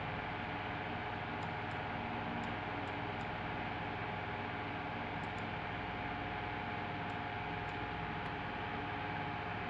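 Steady hiss with a low hum and a few faint high ticks scattered through: room tone with no speech.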